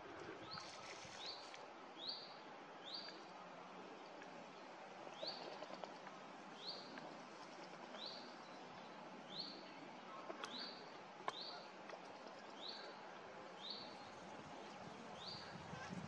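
A bird repeats a short, high, rising call about every 0.7 seconds, with a couple of brief pauses, over a faint steady hiss. Two sharp clicks come about ten and eleven seconds in.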